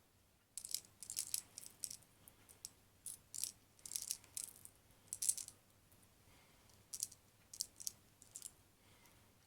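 Plastic 0.20 g airsoft BBs clicking and rattling as they are pushed one at a time into the top of a spring-powered Tokyo Marui Desert Eagle's magazine. It is a run of small, sharp, high-pitched clicks, irregularly spaced and sometimes bunched.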